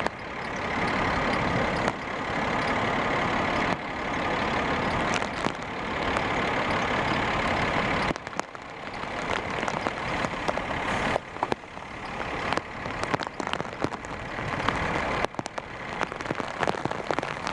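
Steady roar of wind and rain as a large tornado closes in. From about eight seconds in the sound turns gustier, with many sharp taps of rain and small tree debris striking.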